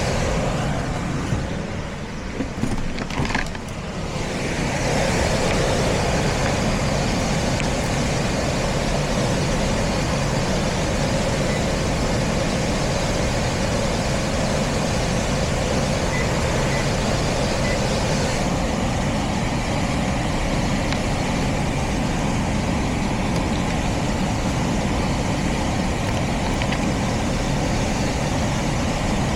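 Heat pump system running, a steady even rushing hum. A few clicks and knocks of handling come in the first few seconds.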